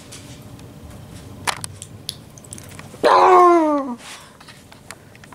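A squeaky plush dog toy squeezed once, giving a loud squeal about a second long that falls in pitch, about three seconds in. A few faint clicks come before it.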